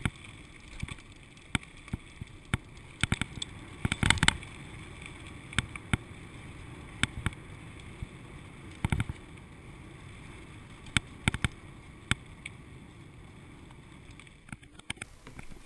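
Riding noise of a bicycle on a gravel path, as picked up by a GoPro HD Hero2 inside its waterproof housing: a steady, muffled rumble broken by many irregular sharp knocks as things bang around on the rough surface.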